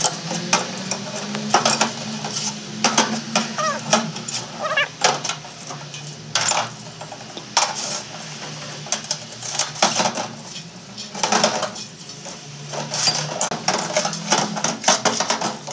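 Brush scrubbing and metal gearbox parts clinking in a solvent parts washer, with cleaning fluid running from the nozzle. There are many sharp clinks and scrapes at irregular intervals over a steady low hum.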